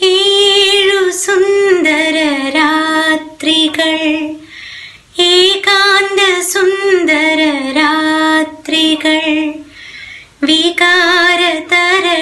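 A woman's solo voice singing a slow melody in long held notes with vibrato, in three phrases with short breaks between them.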